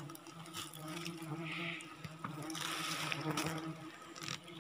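A steady low hum throughout, with brief rustling about one and a half seconds in and again around three seconds in.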